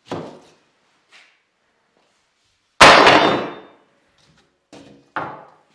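Long flat steel bar being laid down on a workbench: a knock at the start, a loud metallic clang about three seconds in that rings on for about a second, then two shorter clanks near the end.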